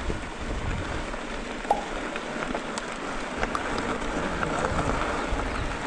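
Mountain bike tyres crunching and crackling over a loose dirt-and-gravel trail while climbing, with scattered small clicks and a fluctuating wind rumble on the microphone.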